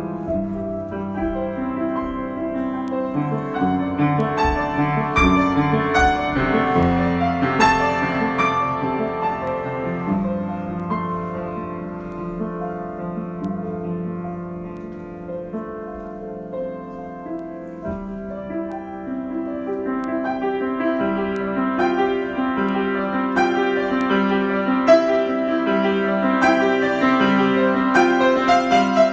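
Solo piano improvisation, chords and melody played freely. It swells louder in the first third, eases off to a quieter passage in the middle, then builds again toward the end.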